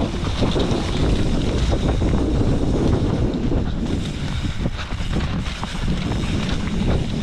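Wind buffeting the microphone over a low, steady rumble, as from a camera riding on a moving enduro motorcycle.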